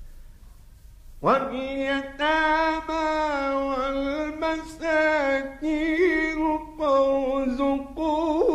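Male Quran reciter chanting in melodic tajweed style, starting about a second in: long held, ornamented notes in several phrases with short breaths between them, over a faint low hum.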